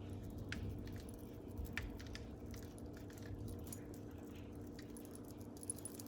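Faint scattered ticks and clicks of cayenne pepper being shaken from its container onto the chicken wings, over a steady low hum.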